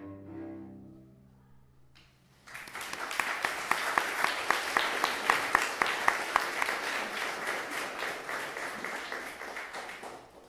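Two cellos' final chord ringing and dying away, then, after a short pause, an audience applauding for several seconds, tailing off near the end.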